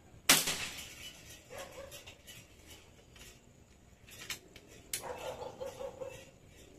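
A single rifle shot just after the start, a sharp crack that rings away over about a second. A dog barks about a second and a half in, then again in a quick run of barks about five seconds in, and two sharp clicks come around four and five seconds in.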